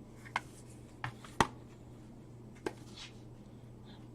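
CD cases being handled: a few sharp plastic clicks and light rustling, the loudest click about a second and a half in, over a low steady hum.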